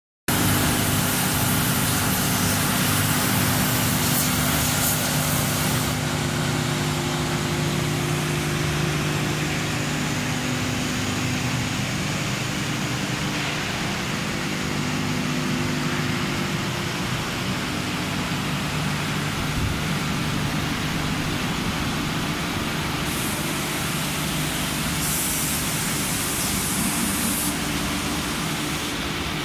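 Steady drone of a concrete roof-tile painting line running, its blower fans and motors giving a continuous hum under a hiss. The hiss is stronger for the first six seconds and again in two stretches near the end.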